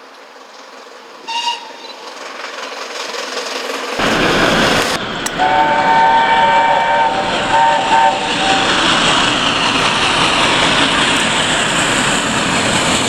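Steam locomotive whistle: a short faint toot about a second in, then, over the loud rushing noise of the train, two blasts of a chime whistle sounding several notes together, the first about two seconds long and the second about one.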